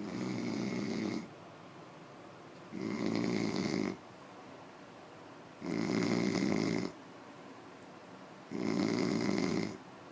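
A drunk man snoring in his sleep: four regular snores about three seconds apart, each lasting just over a second.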